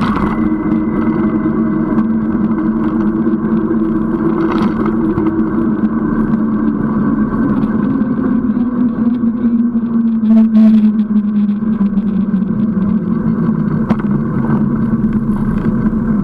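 Steady road noise from a fat-tyre tandem bicycle rolling along asphalt: a low drone of tyres and wind, whose hum sinks slightly in pitch about ten seconds in.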